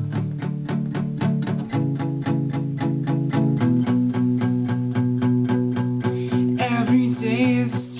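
Acoustic guitar with a capo played in a steady picked rhythm, about five strokes a second, the chord changing twice. A brief rasping noise sounds near the end.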